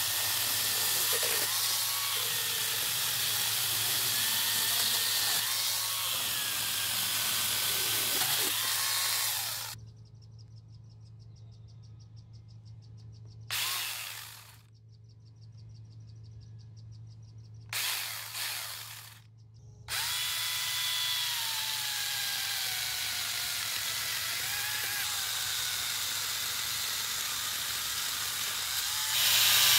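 A cordless angle grinder fitted with a chainsaw bar and chain runs and cuts through wood, its pitch wavering as the chain bites. About a third of the way in it stops for roughly ten seconds, broken by two short bursts. It then runs and cuts steadily again.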